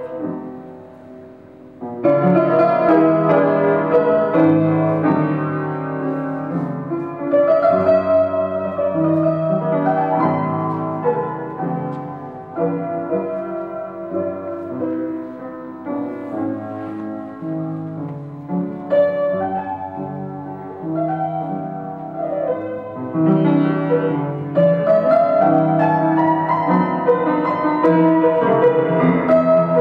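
Upright piano playing sustained chords. The sound dies away over the first two seconds, then a louder phrase starts and the playing continues.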